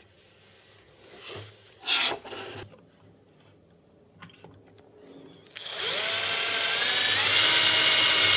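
Acrylic pieces handled with a few short scrapes about two seconds in; then, well past halfway, a cordless drill spins up and runs steadily as its bit bores into the edge of an acrylic sheet. Its whine steps up in pitch once, and it is the loudest sound.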